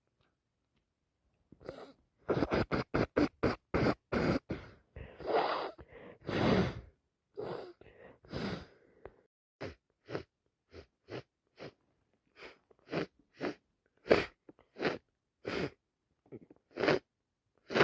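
A person with a heavy head cold sneezing and sniffling. A fast run of sharp nasal bursts comes first, then a few longer noisy blasts, then short sniffs about twice a second.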